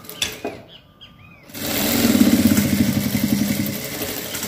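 Industrial single-needle sewing machine (Jack) stitching at speed, starting about one and a half seconds in, with a rapid, even needle rhythm.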